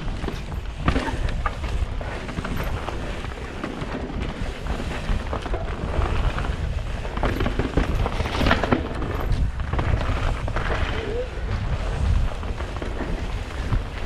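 Wind buffeting a GoPro microphone while a mountain bike's tyres roll fast over a loose gravel trail, with frequent knocks and rattles as the bike hits rocks and roots.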